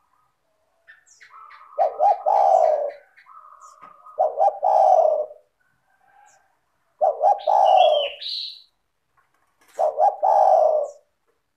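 Spotted dove (tekukur) cooing, four phrases spaced about two and a half seconds apart, each opening with a short higher note before a rapid run of coos. Small birds chirp faintly behind it.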